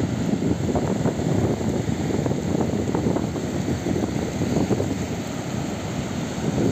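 Wind buffeting the microphone in a low, gusting rumble, over the wash of rough surf breaking on the beach.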